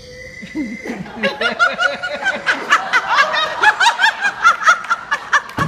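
An audience laughing, the laughter building from about a second in and getting louder, with a dull thump near the end.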